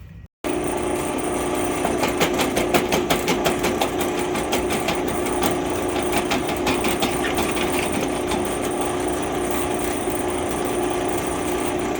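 A machine tool is running and cutting a hole through a metal bracket, a steady hum with a fast rattling chatter through the middle. The machinist puts the resulting roughness in the bore down to a chip curling up in it.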